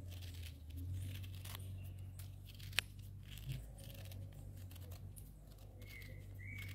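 A knife cutting around the rind of a pink marsh grapefruit: faint scraping and tearing of the peel, with one sharp click about three seconds in, over a low steady hum.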